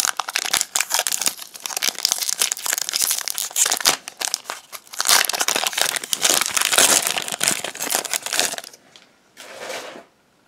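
Pokémon TCG booster pack's foil wrapper crinkling and tearing as it is opened by hand, a dense crackle that dies away about nine seconds in, with one short crinkle after.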